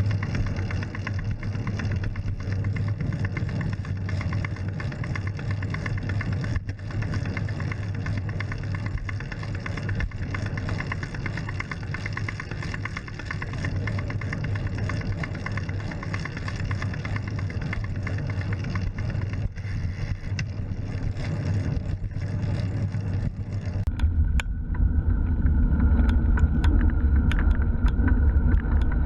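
Road traffic: a car engine running and steady road noise. About 24 seconds in, the sound turns duller and the low engine hum gets louder.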